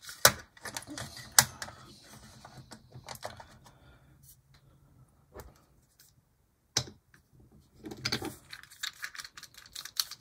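Hard plastic clicks and clatter from an HO-scale Tyco ALCO Century 430 model locomotive being handled and set down on its track. There are two sharp clicks in the first second and a half, scattered clicks after that, and a short run of clatter about eight seconds in. A faint low hum runs under the first few seconds.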